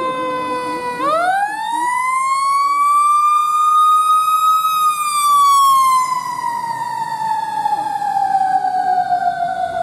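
Fire engine siren wailing. Its pitch sinks a little, then climbs quickly about a second in and levels off at its highest and loudest, then falls slowly and steadily for the rest of the time.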